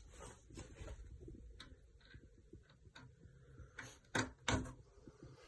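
Light clicks and taps from handling the parts of a flat-pack IKEA ALEX drawer during assembly, with two louder knocks close together about four seconds in.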